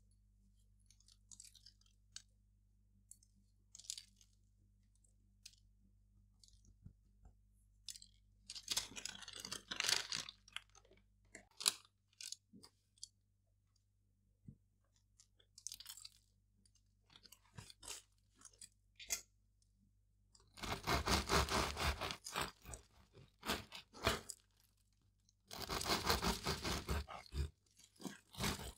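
Serrated bread knife sawing through the crust of a baked, seed-topped quinoa loaf, crunching in two bouts of a couple of seconds each, the second ending near the end. Earlier there are only faint, scattered ticks and a brief scratchy noise about eight seconds in.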